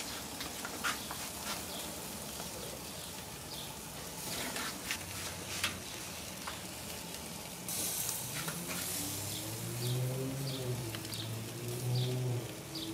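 Corn cobs brushed with butter sauce sizzling on a grill, with scattered pops and crackles. From about eight seconds in, a low droning hum that slowly wavers in pitch joins underneath.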